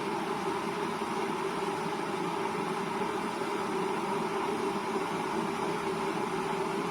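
Water boiling in a Russell Hobbs Victory 2400 W electric kettle, a steady, unbroken noise of the kettle working up to full boil before it switches off.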